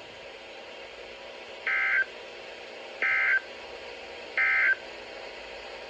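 Emergency Alert System digital data tones from a NOAA Weather Radio broadcast: three short, identical screechy warbles about a second apart, the End of Message code that closes the weekly test. A faint steady radio hiss lies underneath.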